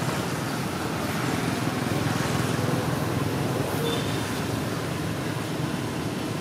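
Steady outdoor background noise, even throughout, with a short faint high note about four seconds in.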